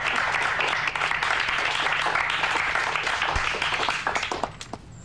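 Crowd applauding, the clapping dying away about four seconds in.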